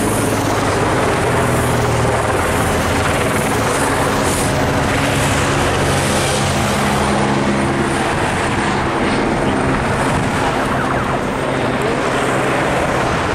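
Helicopter rotor chopping steadily overhead, loud and unbroken, with race vehicle engines beneath it.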